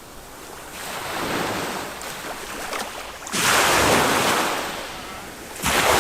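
Small waves of a calm Mediterranean sea breaking on a sand beach. A gentle wash swells about a second in, then two louder breaks follow, one at about three seconds and one near the end, each dying away as a hiss.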